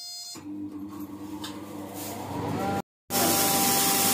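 Electric pulverizer flour mill running, a steady motor hum that grows louder. After a sudden break, a much louder, even, noisy grinding follows as rice is poured into the hopper.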